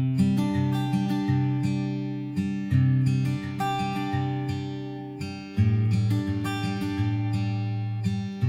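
Background music: an acoustic guitar playing plucked chords, each one ringing and fading before the next.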